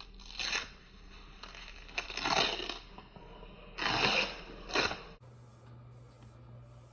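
About four short bursts of rustling and clattering handling noise as a mystery-box item and its packaging are handled and opened, followed after about five seconds by a quiet steady room hum.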